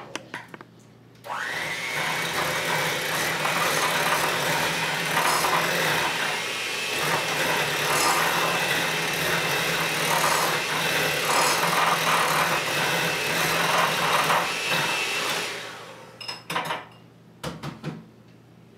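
Electric hand mixer beating cream cheese with sesame dressing: the motor spins up about a second in, runs steadily for about fourteen seconds, then winds down, followed by a few short clicks and knocks.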